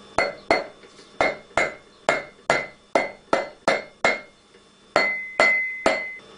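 Soft-faced mallet tapping a Centa cush drive rotor onto the splined hub on an S&S engine's crankshaft: about a dozen sharp blows, two or three a second, each with a short metallic ring. After a brief pause about four and a half seconds in, the last three blows ring longer.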